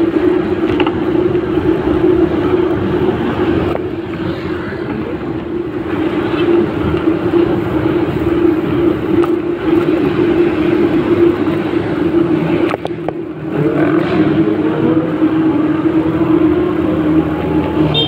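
Engine of a motor vehicle being ridden at road speed, a steady hum with wind and road noise, heard from on board. About thirteen seconds in it eases off briefly, then rises in pitch again as it picks up.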